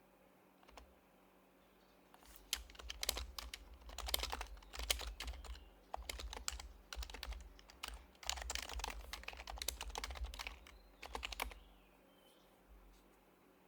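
Typing on a Happy Hacking Keyboard Professional HYBRID Type-S with silenced Topre switches. A few single key presses at first, then quick runs of keystrokes in bursts, stopping a couple of seconds before the end.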